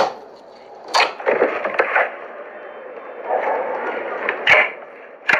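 Slime being squeezed and worked by hand: a wet, crackly squishing with about four sharp pops of trapped air.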